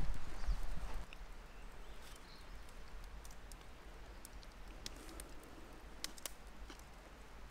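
A man chewing a mouthful of breakfast sandwich, faint, with a few scattered soft clicks; a louder low rumble in the first second.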